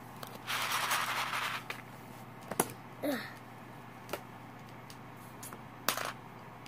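Hard plastic robot-kit parts being cut from their sprue with scissors and handled. There is a rustle about half a second in, then a few sharp, separate plastic clicks.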